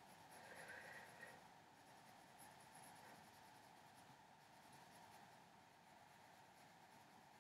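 Faint, soft scratching of a colored pencil shading on paper, a little stronger in the first second or so.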